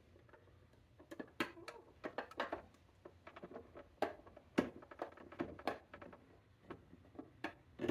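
Faint, irregular clicks and ticks, several a second, from the plastic carbonating bottle being handled and tilted out of a SodaStream Jet sparkling water maker.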